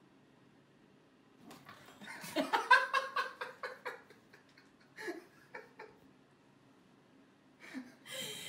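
A person laughing: a run of quick giggles lasting about two seconds, then short chuckles a few seconds later and again near the end.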